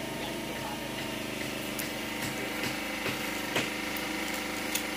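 Sugarcane rind being split and torn from the stalk, a handful of sharp splintering cracks spread through the middle and end, over a steady motor hum.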